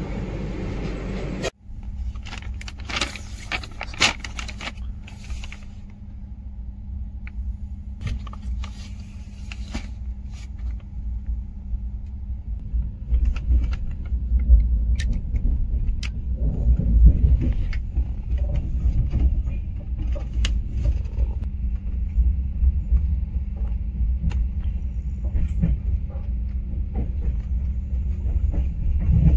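Express passenger train running on the line: a steady low rumble from the moving coaches, with scattered clinks and knocks in the first ten seconds. The rumble grows louder from about halfway through.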